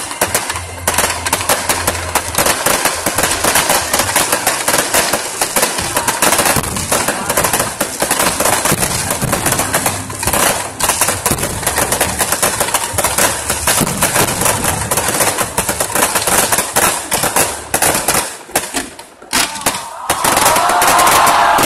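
Fireworks display: a continuous rapid barrage of bangs and crackling, many reports a second. Near the end the bangs thin out and raised voices come up.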